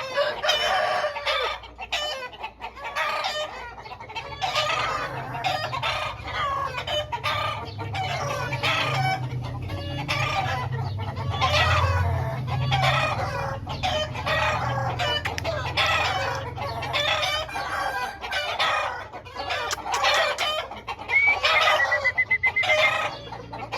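Aseel chickens calling over one another: repeated clucking with rooster crowing, going on without pause. A low steady hum runs under the calls through the middle.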